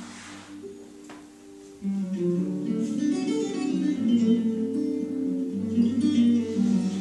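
Instrumental break in a sung Russian romance: accompaniment music with no voice. It is soft at first and steps up louder about two seconds in, into fuller held chords.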